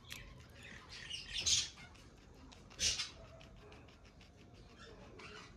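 Guinea pig biting and chewing a green bean: a run of small chewing clicks, with two louder crunches about a second and a half and three seconds in.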